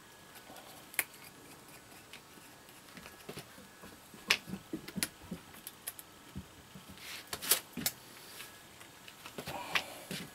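Scattered small clicks and taps of a plastic squeeze tube of chili paste being handled and opened, its cap twisted off, with a cluster of clicks about seven seconds in and more near the end.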